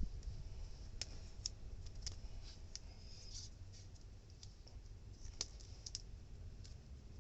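Scattered light clicks and taps at irregular intervals over a low steady rumble, from hand tools and copper pipe being handled during air-conditioner pipe flaring.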